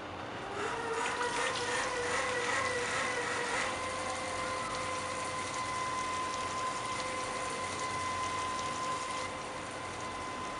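Water running from a mixer tap into a bathroom sink, turned on about half a second in, with a steady whining tone over the rush of water.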